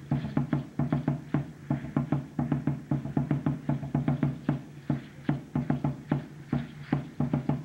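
Aztec danza drumming: large upright huehuetl drums beaten in a fast, steady rhythm of about four to five strokes a second.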